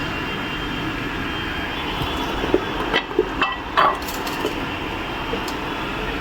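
A few sharp metal clinks and knocks in the middle, over steady background noise, as the opened hub motor of an Okinawa Praise Pro electric scooter is handled. The motor's bearing is broken.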